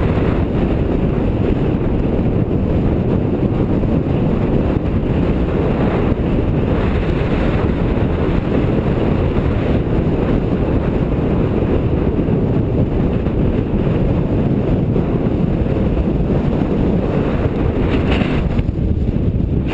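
Strong gale-force wind buffeting the camera microphone: a loud, steady, low rumbling wind noise with no letup.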